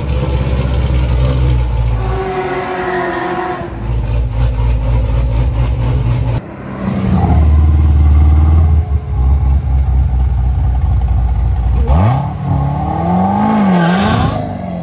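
Supercharged V8 of a modified 2016 Corvette Z06, with a ported blower and long-tube headers, running loud as the car drives past. The sound cuts abruptly a couple of times. Near the end the engine is revved, its pitch rising and then swinging up and down.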